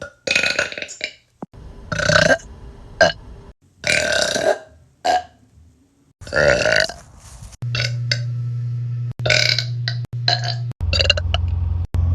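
A person burping again and again: about a dozen loud burps, some short and some drawn out. A steady low hum starts about halfway through and carries on under the later burps.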